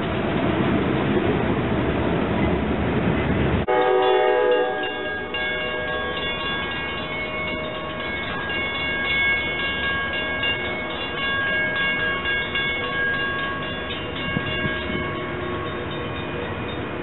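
Train air horn sounding held chords of several notes for about twelve seconds as a train approaches. Before it, a few seconds of loud low rumble that cuts off abruptly.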